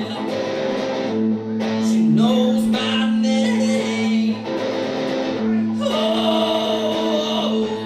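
A man singing along to a strummed acoustic guitar in a live solo performance, with long held notes under the voice.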